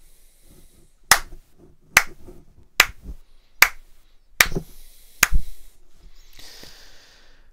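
Slow handclap: six sharp, evenly spaced claps a little under a second apart.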